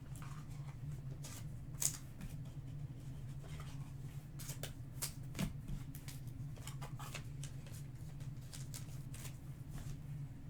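Trading cards being handled and flipped through by hand, with scattered soft clicks and slides of card stock. A steady low hum runs underneath.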